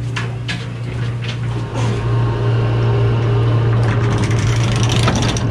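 Steady low hum of a fishing boat's machinery, with a few sharp knocks in the first second or so. From about two seconds in it grows louder as the anchor windlass hauls in the anchor rope.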